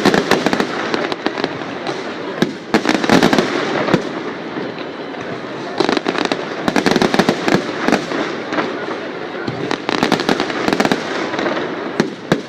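A fireworks display: a steady run of bangs and crackling shell bursts, thickening into rapid clusters of reports a few times.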